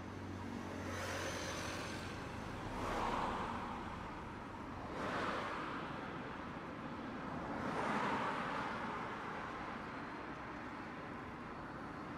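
Street traffic: road vehicles passing one after another, four swells of passing noise over about twelve seconds.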